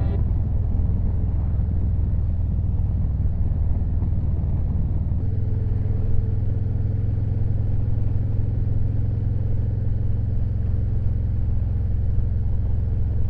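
Harley-Davidson Road Glide Limited's V-twin engine running steadily under way, with a low, even note that changes slightly about five seconds in.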